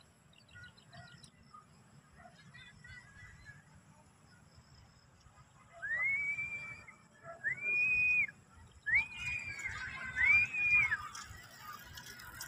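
Four long whistled calls, one after another, each rising quickly, holding and then falling away, starting about halfway through. Faint small-bird chirps are heard before them.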